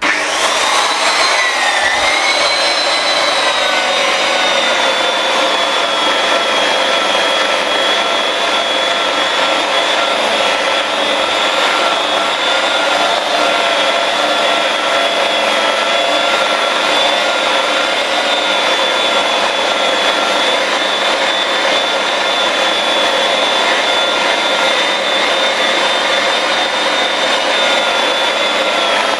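Electric rotary polisher with a foam sponge buffing pad switched on, spinning up and then running steadily with a high whine while it buffs grade 3 cutting compound into a sanded area of car door paint. The whine climbs at the start, dips briefly about two seconds in, then holds steady.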